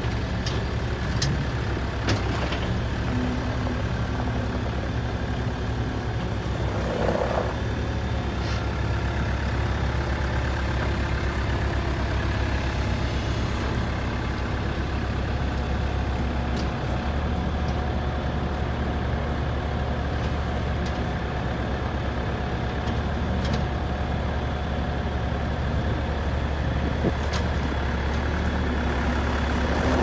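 2006 Case 430 skid steer loader's diesel engine running steadily as the machine drives on gravel and raises its loader bucket, with a few short clicks over it.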